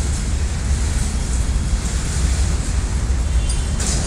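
Freight train of covered wagons rolling past with a steady low rumble, and one short sharp clank near the end.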